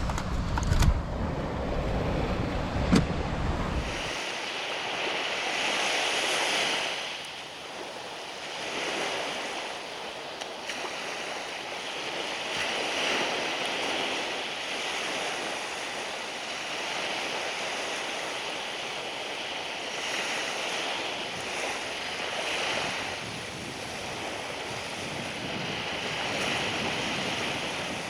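Surf washing up a sandy beach, the sound swelling and fading every few seconds as waves come in. Wind buffets the microphone for the first few seconds, with two sharp knocks in that stretch.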